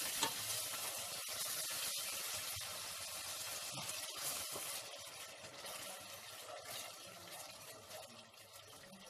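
Onion-tomato masala sizzling in a steel pot after a splash of water, being fried down so the onions soften. A steady hiss, with a few light scrapes of a wooden spoon, swells just after the start and then dies down gradually.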